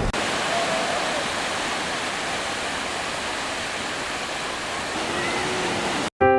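Sea surf rushing steadily on a beach, a continuous wash of breaking waves. It cuts off abruptly near the end, and a piano chord begins.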